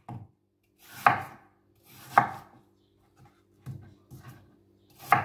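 A kitchen knife slicing through a peeled green apple, each cut ending in a sharp knock of the blade on a plastic cutting board, roughly one stroke a second with a couple of fainter taps between.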